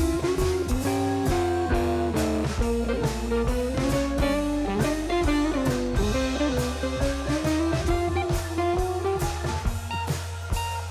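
Background music: a guitar-led blues-style track with drums and a steady beat.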